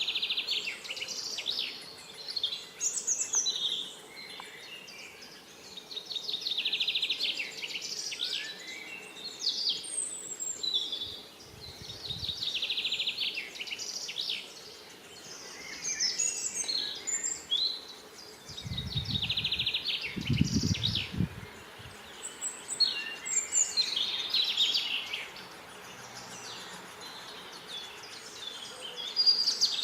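Great spotted woodpecker nestling in its nest hole, giving bouts of fast, high, buzzy begging calls every couple of seconds. A few low thuds come in around the middle.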